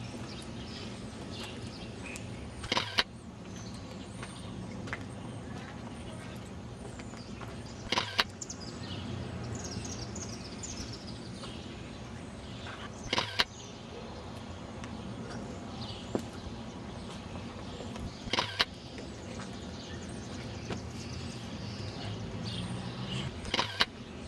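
Outdoor city ambience: a steady low rumble of traffic with small birds chirping on and off. A sharp double knock comes about every five seconds, five times in all.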